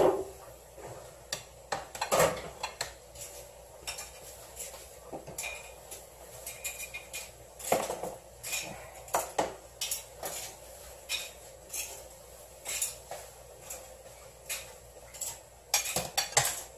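Ceramic plates and dishes clattering and clinking as they are picked up and set down on a counter, in irregular knocks with a brief ring now and then.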